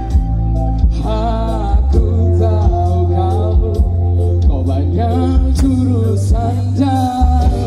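A live band playing through a large outdoor PA system, with a heavy, continuous bass and a sung melody line over it.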